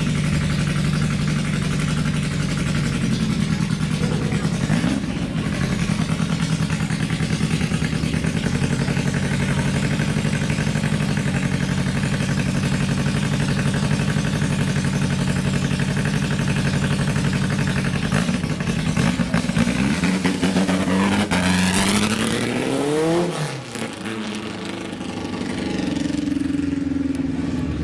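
Vintage race car engine running steadily at raised revs, then revving hard with pitch climbing steeply about 20 seconds in as it accelerates away, dropping off briefly before another engine rises near the end.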